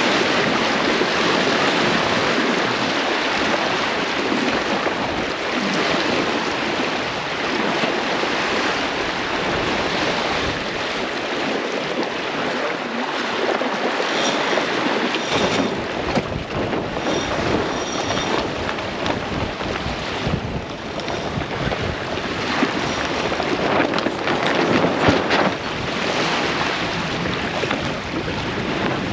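Steady rush of wind on the microphone and water moving along the hull of a sailboat under sail. A few faint, short high-pitched squeaks come about halfway through.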